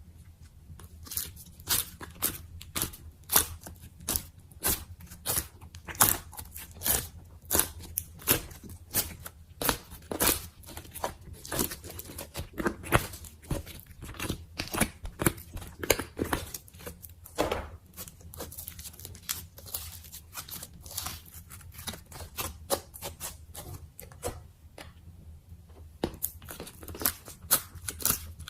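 Slime being poked and pulled by hand: an irregular run of sharp clicks and pops, several a second, with a short lull about three-quarters of the way through.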